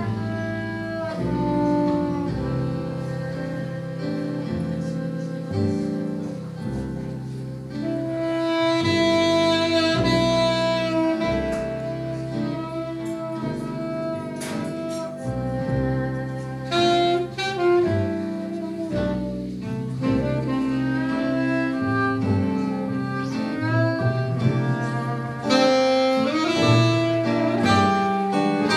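Small jazz band playing live: tenor saxophone to the fore, with violin, guitars and double bass.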